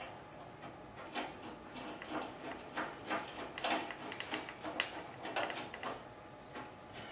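Engine-mount bolt and nut being worked in by hand under a motorcycle engine: scattered small clicks and scrapes of metal hardware, with one sharper click about two-thirds of the way through.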